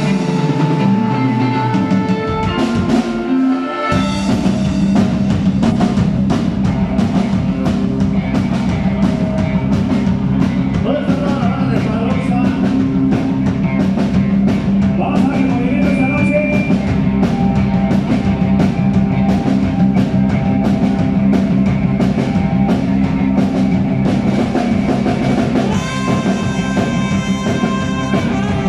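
Band music with a drum beat and bass: the bass and full beat come in about four seconds in, and a brighter held chord enters near the end.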